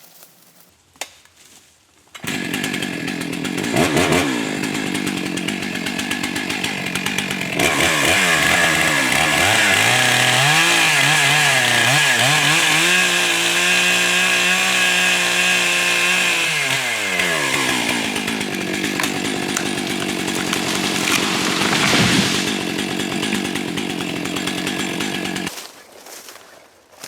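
Chainsaw starting up about two seconds in and cutting through the back of a wedged tree trunk, its engine note wavering and dipping under load through the middle, then running lighter until it stops near the end. A thump comes shortly before it stops.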